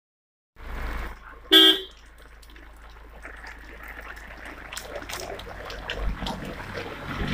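A vehicle horn gives one short toot about a second and a half in, over the steady hiss of a rain-soaked street.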